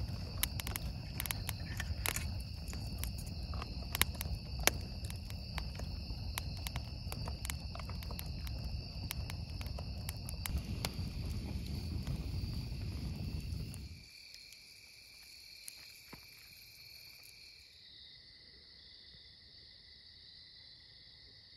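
Driftwood campfire crackling and popping, with irregular sharp snaps over a low rumble, against a steady high chorus of insects. About fourteen seconds in the fire sound stops abruptly, leaving only the faint, even insect trilling.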